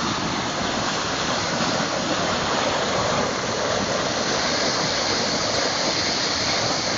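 Swollen, flooding creek water rushing steadily, a continuous even noise.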